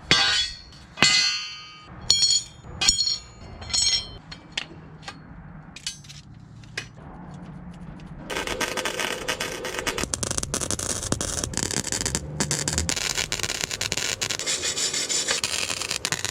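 Pieces of steel clanking and ringing as they are handled and struck, a few sharp hits in the first half. Then a steady harsh scraping noise with fine crackle, typical of metal being ground or worked.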